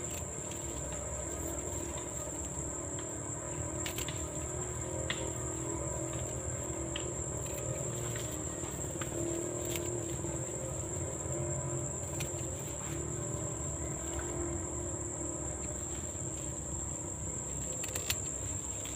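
Insects trilling: one steady, unbroken high-pitched note, with a few sharp clicks scattered through it.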